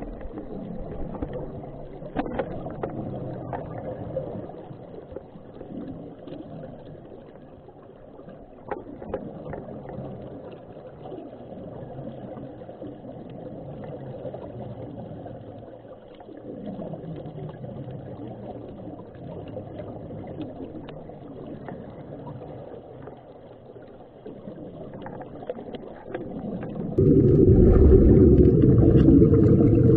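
Underwater noise: a low rumble with bubbling and crackling from the air fed into the diving helmets, swelling and fading every few seconds. About 27 s in it changes abruptly to a much louder, deeper rumble.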